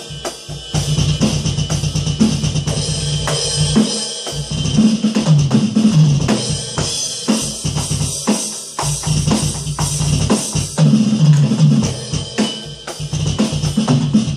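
Roland V-Drums electronic drum kit played in a steady beat, with kick, snare and cymbal hits, along with recorded music.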